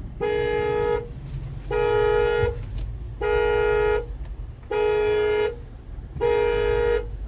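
Honda Ridgeline's horn sounding in a steady on-off alarm pattern: five blasts of under a second each, about one and a half seconds apart, over a low rumble. It is the truck's faulty alarm system, which goes off whenever the truck is put in park.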